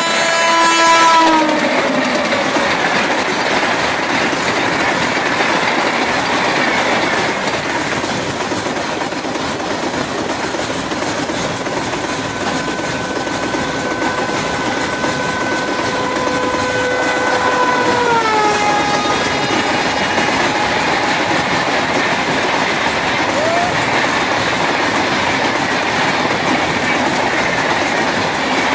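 Diesel locomotive horn and a long freight train rolling by: a horn chord drops in pitch about a second in, then a second long horn blast sounds from about the middle and drops in pitch before it stops. Under both, the wagons keep up a steady rumble and clatter over the rail joints.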